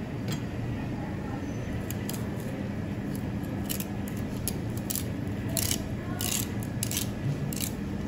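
A knife blade cutting along salmon rib bones and backbone while a fish is filleted: a series of short, crisp scraping strokes, coming more often in the second half, over a steady low hum.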